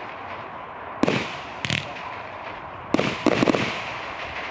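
Sovereign Fireworks 'Silvery Rain' 25-shot barrage firing, with sharp bangs from its shots over a steady hiss. There is one bang about a second in, a quick double shortly after, and a fast cluster of several bangs around three seconds in.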